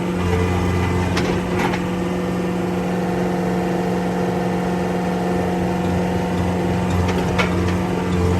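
John Deere E-Series skid steer's diesel engine running steadily, heard from the cab, with a few light clicks. The low hum swells and drops in short spells as the machine is eased along on controls that jerk instead of creeping.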